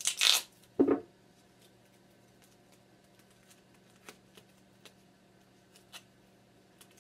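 Duct tape being torn, two short loud tearing sounds in the first second, followed by a few faint taps and crinkles as the tape is pressed onto a duct-tape-covered pouch.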